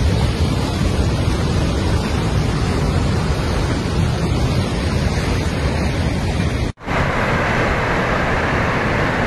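Rushing water of a flash-flooding mountain river: a loud, steady rush with no let-up. About seven seconds in it cuts abruptly to another stretch of rushing water that sounds brighter and hissier.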